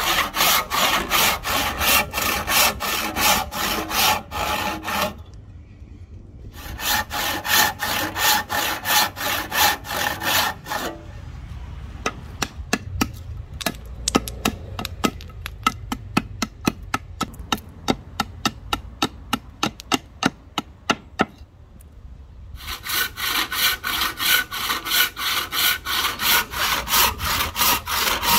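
Hand saw cutting wood in rapid, even back-and-forth strokes. About five seconds in, the sawing breaks off for a second and a half. Through the middle the strokes are lighter and sharper, and full heavy strokes return near the end.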